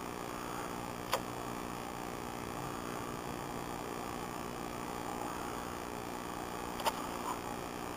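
Steady electrical hum with a light hiss, broken by two short sharp clicks, one about a second in and one about seven seconds in.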